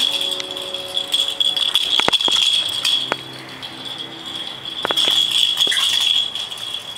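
A small plastic cat-toy ball rattling and jingling as a boxer puppy carries and mouths it. The jingling pauses for a second or so midway, and the ball knocks sharply a few times.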